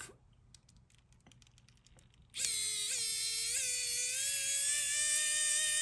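Small motor of a rechargeable electric precision screwdriver whining as it backs out a tiny hex screw from a watch's band. It starts about two seconds in, dips in pitch briefly twice as it bites, then runs on steadily with its pitch slowly rising as the screw frees. A few faint clicks come before it.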